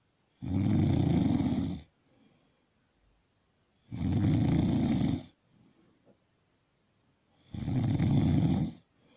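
Loud snoring: three long snores, each lasting over a second, coming about three and a half seconds apart.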